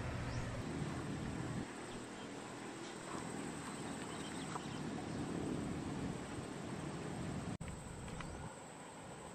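Quiet riverside outdoor ambience: a steady low hiss with a few faint, short animal calls scattered through it. The sound dips out briefly about three quarters of the way in.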